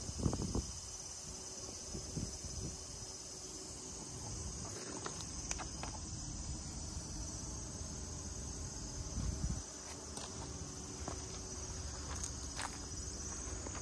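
Insects droning steadily in a high-pitched band, with a few soft low thumps, the loudest a little past the middle.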